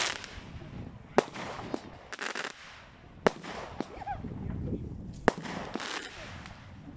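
Fireworks going off: sharp bangs, three loud ones about two seconds apart, each with a fainter bang following.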